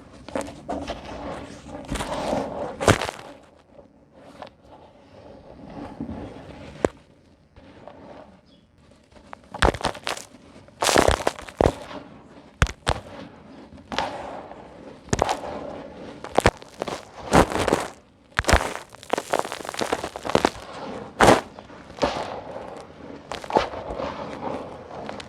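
Dry sand-and-concrete chunks being crushed by hand, snapping and crumbling in an irregular run of sharp cracks and gritty crunches, with a quieter stretch of softer grinding between about four and nine seconds in.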